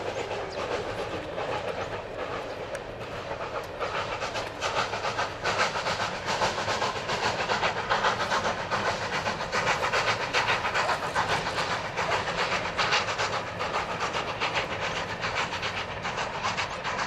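LNER A4 Pacific 4464 Bittern, a three-cylinder steam locomotive, passing under steam with a train of coaches. Its exhaust beats come rapidly over the clatter of the wheels on the rails, growing louder about four seconds in as it draws level.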